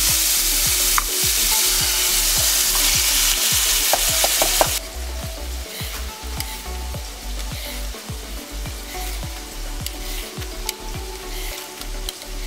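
Ground meat sizzling as it fries in olive oil in a pan while it is stirred with a wooden spoon. The sizzle cuts off abruptly about five seconds in, leaving quieter sounds with faint background music.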